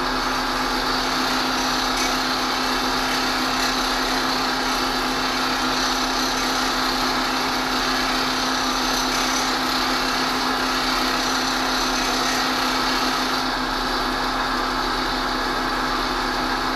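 Bench grinder running with a steel plane iron held against its wheel: a steady motor hum under a dense grinding hiss as the bevel is ground back to remove the blunted flat on the edge. About thirteen seconds in, the grinding hiss drops back while the motor keeps running.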